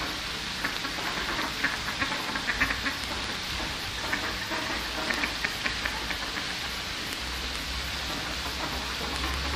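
Mallard ducks quacking in scattered short calls, heard over a steady rushing hiss.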